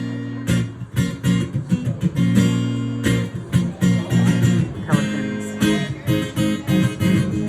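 Acoustic guitar music, strummed and plucked in a relaxed rhythm.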